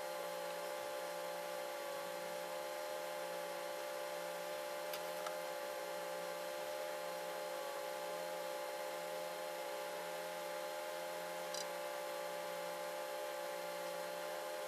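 Steady electrical hum made of several fixed tones, with a slow, soft pulsing underneath and a couple of faint ticks.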